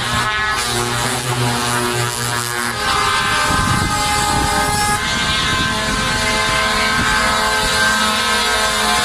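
Truck air horns honking in long, held blasts, several horns overlapping; the blend of horn tones changes about three seconds in.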